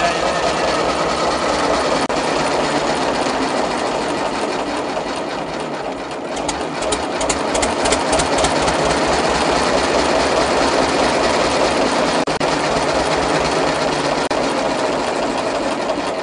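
The Deutz diesel engine of a 1944 Zettelmeyer road roller, running steadily with an even, rhythmic beat.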